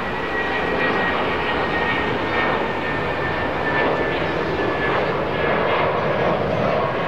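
Airbus A319 jet airliner climbing out after takeoff, its engines at climb thrust: a steady jet roar with a high whine that slowly falls in pitch and fades late on.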